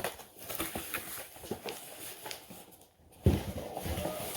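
Cardboard box and packaging being handled and opened, with scattered clicks and rustling and a sharp knock a little over three seconds in.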